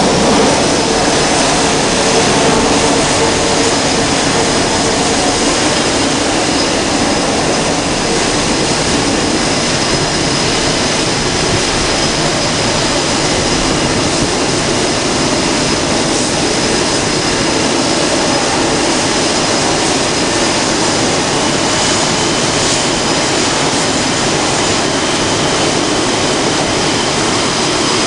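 Jet engines of F/A-18 fighters running on an aircraft carrier's flight deck: a continuous loud roar with a thin steady high whine over it, slightly stronger in the first second.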